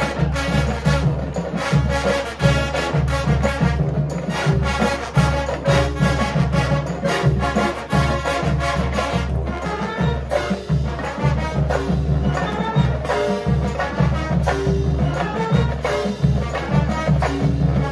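College marching band playing: brass over drums and front-ensemble mallet percussion, with a steady beat.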